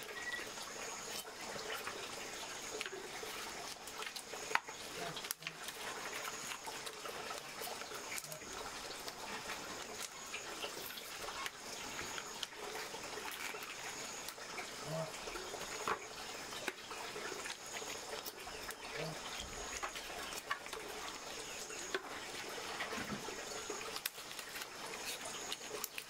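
Wet squelching and small knocks of raw pork pieces and bones being pulled apart and handled in a plastic basin, over a steady background with a faint high chirping that comes and goes.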